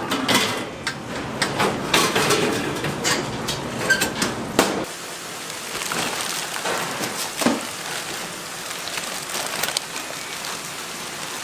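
Clatter and sharp knocks of a large stainless-steel pot and its metal lid being handled and slid into a commercial kitchen cooking cabinet. From about five seconds in, a steady hiss of kitchen noise with scattered light knocks.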